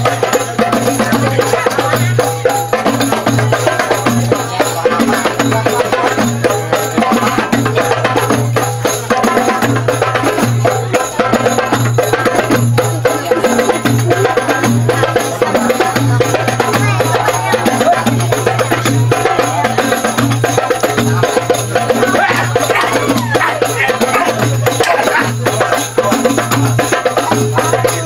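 Loud, steady music with fast, dense percussion strikes over a continuous low pulsing drone.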